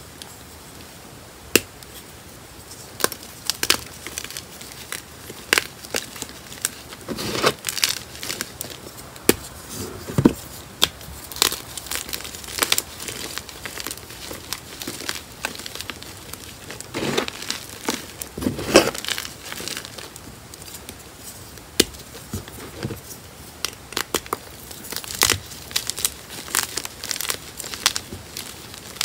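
Blocks of gym chalk snapped and crushed by hand: sharp cracks at irregular intervals, with denser crumbly crunching in a few clusters as the pieces are squeezed and ground in the fists.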